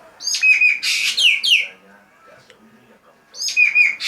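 Green magpie (ekek geling) calling: a loud burst of harsh, screechy notes mixed with quick downward-sliding whistles, about a second and a half long, then the same burst again near the end.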